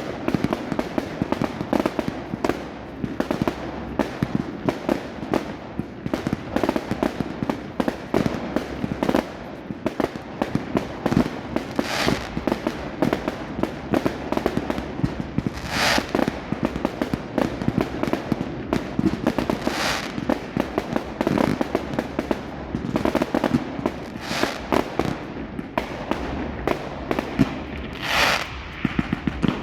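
Fireworks going off in a fast, continuous barrage of cracks and bangs, with a few louder bursts standing out about every four seconds.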